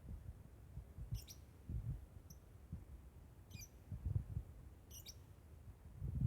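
Lovebird giving short, high chirping calls, about four, spaced a second or so apart: a lone bird calling for its missing companion. Dull low bumps sound between the calls.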